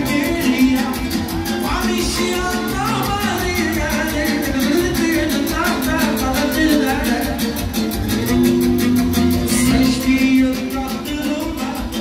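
Live Romani dance music (manele, joc țigănesc): a male singer sings a winding, ornamented melody into a microphone over an amplified band with a fast, steady beat.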